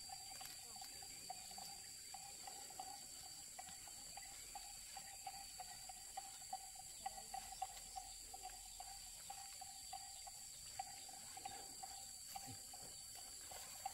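Faint insect chorus: steady high-pitched buzzing with a lower, rapidly pulsing chirp, over scattered small clicks and taps.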